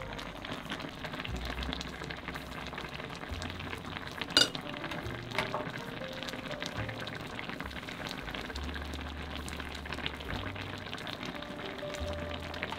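Spicy braised beltfish stew simmering and bubbling in a ceramic pot, a steady crackling bubble as the sauce reduces over low heat toward done. A single sharp click about four seconds in, with quiet background music underneath.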